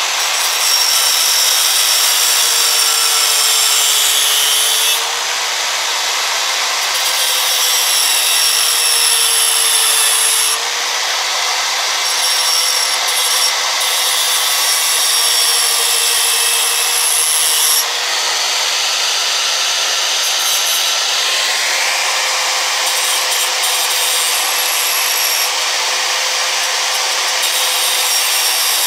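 Electric angle grinder with a thin cutoff wheel cutting through sheet metal: a steady, high, hissing grind over the motor's whine. The sound becomes briefly quieter three times.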